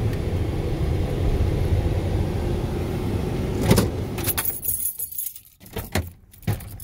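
2002 Ford F-150 cab interior with the truck running, a steady low drone. About three and a half seconds in there is a sharp knock, after which the engine sound is gone and light metallic jingling and clicking follow.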